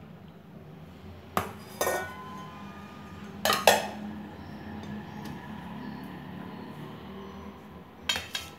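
Stainless steel plates and vessels clinking as thatte idlis are handled and stacked on a steel plate: several sharp metallic clinks with short ringing, the loudest about three and a half seconds in, over a steady low hum.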